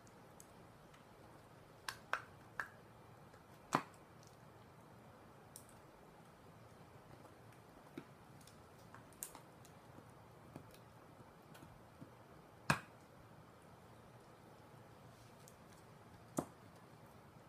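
A poodle chewing a beef bone: irregular sharp cracks and clicks of teeth on bone, a few seconds apart, the loudest about four and thirteen seconds in.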